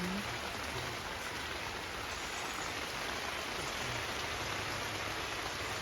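Steady rain falling, an even hiss of drops with no letup.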